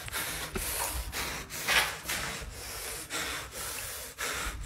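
Handling noise from a handheld phone being carried on the move: rhythmic rubbing and rustling bursts, about two a second.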